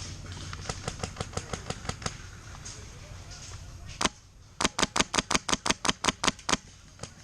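Airsoft gun firing: a single sharp shot about four seconds in, then a rapid string of about a dozen shots over two seconds. Fainter quick ticking comes before it in the first two seconds.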